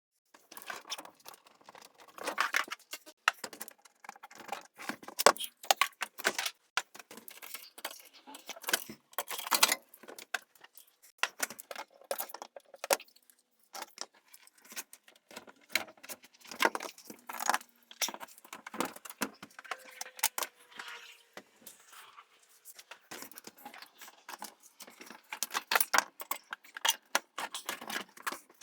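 Rapid, irregular clicks, clinks and rattles of metal hardware and gear being handled, coming in clusters with short pauses between them.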